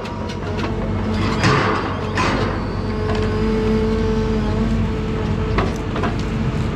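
John Deere 1010G forwarder running, its diesel engine humming steadily. A few scraping sweeps come in the first half, a steady higher tone sits over the engine through the middle, and there are short knocks near the end.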